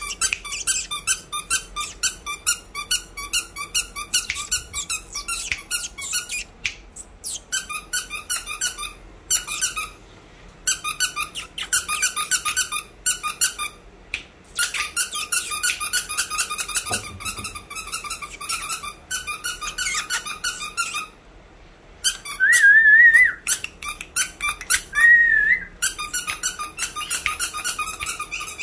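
A squeaky toy squeezed in fast runs to catch a puppy's attention, the squeaks coming in quick strings broken by short pauses. There are two longer wavering squeals about 22 and 25 seconds in.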